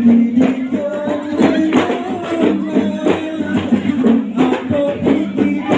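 Live Kei-style gambus music: a plucked gambus lute melody over hand-drum beats, about two strikes a second.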